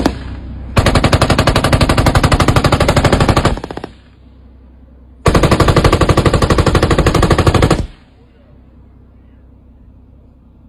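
25mm Bushmaster autocannon on a LAV 6.0 firing two long bursts of rapid, evenly spaced shots, each about two and a half seconds long, with a pause of under two seconds between them.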